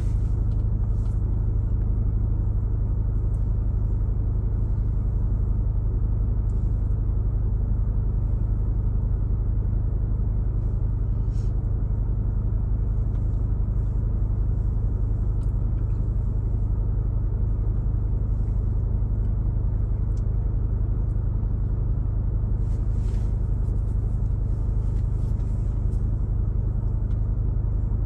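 Steady low rumble of road and engine noise inside a car's cabin while driving, with a few faint short ticks.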